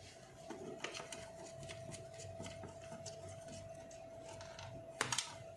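Pliers working on an old switchboard's fittings: scattered light clicks and scrapes, with a sharper burst of clicks about five seconds in, over a faint steady hum.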